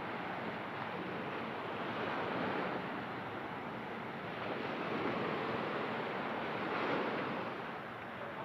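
Ocean surf washing onto the beach, a steady rush that swells twice and fades away near the end.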